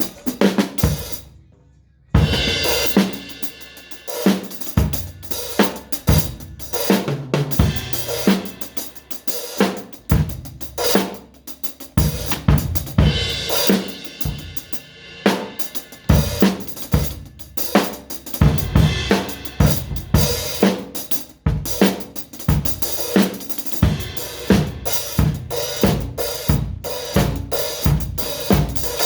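A drum kit being played: kick drum, snare, hi-hat and cymbals in a continuous, busy pattern of strokes. After one hit at the start and a short pause, the playing resumes about two seconds in.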